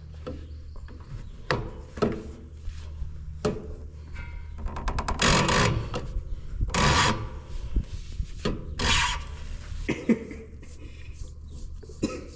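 Metal filter wrench clicking and scraping on a skid loader's spin-off hydraulic filter as the filter, too tight to turn by hand, is wrenched loose and unscrewed. Scattered sharp clicks, with several louder rasping scrapes in the middle.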